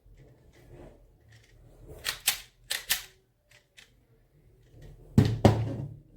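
Handling noise: sharp clicks and clacks of hard objects, in pairs about two and three seconds in, then two louder knocks near the end.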